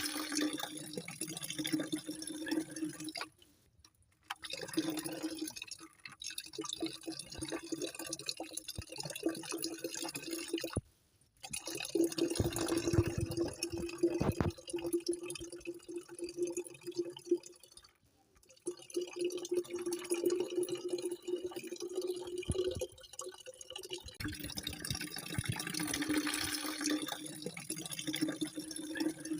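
Running, dripping water, with a steady low hum underneath. It cuts out to near silence three times for about a second each.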